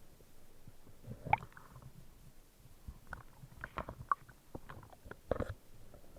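Muffled underwater sound: a low rumble with scattered sharp clicks and knocks, the loudest about a second in and again near the end.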